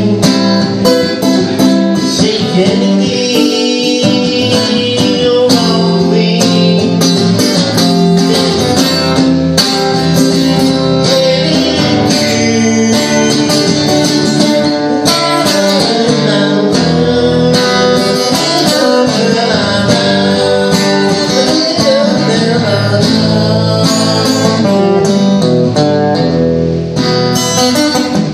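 Acoustic guitar played solo as an instrumental break: picked melodic lines and strummed chords, with a continuous run of changing notes.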